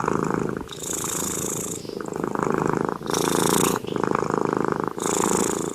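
Tabby cat purring steadily, a fast rattling purr that changes tone with each breath in and out, about one full breath every two seconds.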